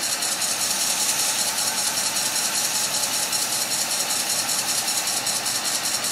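Wood lathe running with a beading tool cutting a small bead into the face of a spinning hardwood piece: a steady hiss of the cut over the lathe's running.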